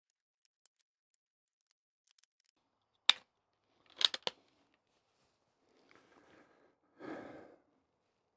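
Sharp metallic clicks from a Bergara B14R .22 rimfire bolt-action rifle being handled: one click, then a quick run of three or four clicks as the bolt is worked, followed by two short spells of soft rustling.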